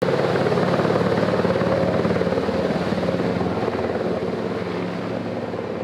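Helicopter in flight: a rapid rotor beat over a steady engine hum, starting abruptly and easing slightly in the second half.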